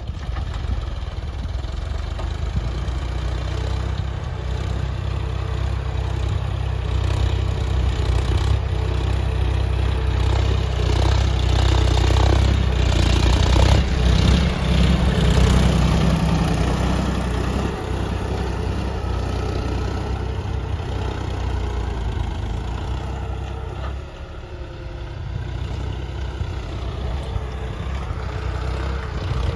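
John Deere farm tractor's diesel engine running steadily while pulling a cultivator through tilled soil. It grows louder around the middle as the tractor passes close, then eases off as it moves away.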